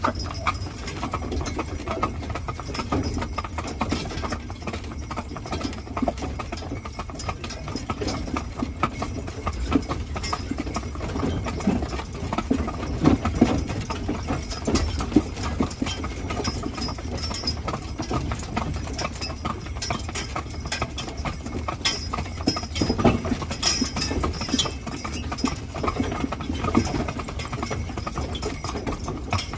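Hoofbeats of a team of two Haflinger horses pulling a wagon: a continuous clip-clop over a steady low rumble.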